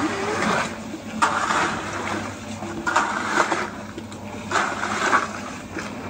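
Rake dragging through wet concrete, a wet scraping stroke about every second and a half, four strokes in all, over a faint steady low hum.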